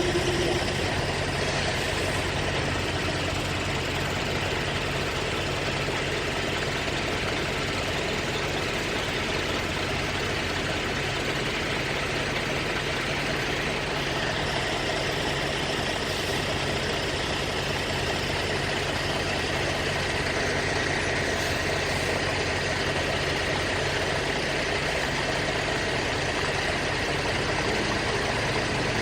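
Semi truck's diesel engine running steadily, heard from inside the cab as an even drone with a low hum.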